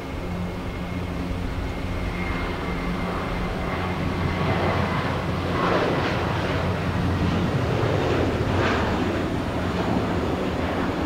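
Jet airliner engines running at takeoff power, a steady low rumble that grows louder about halfway through.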